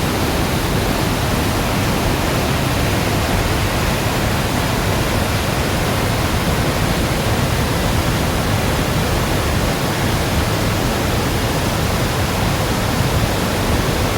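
Mountain river swollen by typhoon rain, its floodwater rushing in a loud, steady, unbroken torrent.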